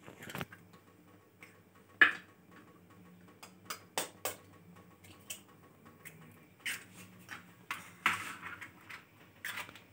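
Scattered light clicks and taps of kitchen cookware being handled, the sharpest about two seconds in, with a few brief rustles and a faint steady low hum underneath.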